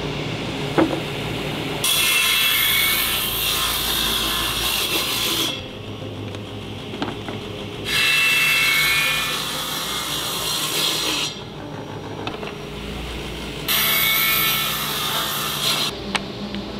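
Table saw cutting hardwood blocks three times, each cut two to four seconds long, with the motor running steadily between cuts.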